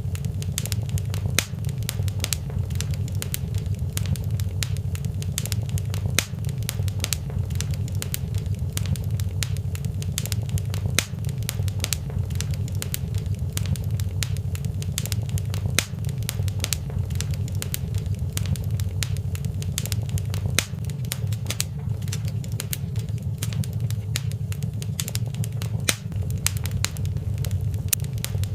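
Fire in a fireplace crackling, with frequent sharp pops and snaps over a steady low rumble.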